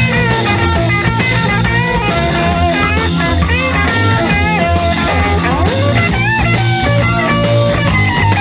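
Late-1960s psychedelic rock band playing an instrumental passage: a lead electric guitar plays bent, sliding notes over a steady bass line and drum kit, with no singing.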